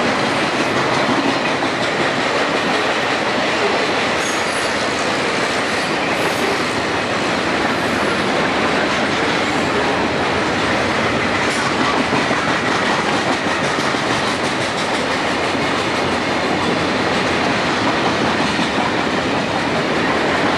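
A train running past on the rails: a steady, loud rush of wheels on track with a thin, high wheel squeal held throughout.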